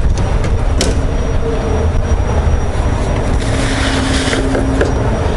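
Wind buffeting a foam-covered external microphone, a steady low rumble, with one sharp click about a second in.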